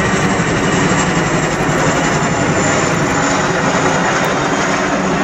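Boeing Chinook HC.4 tandem-rotor helicopter in flight overhead: the beating of its two rotors and the whine of its twin turboshaft engines, loud and steady.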